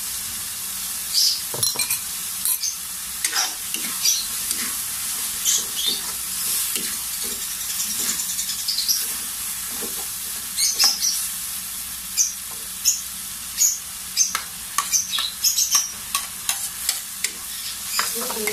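Marinated pork and tomato sizzling in a hot wok while a spatula stirs it, knocking and scraping against the pan many times at an uneven pace over the steady frying hiss.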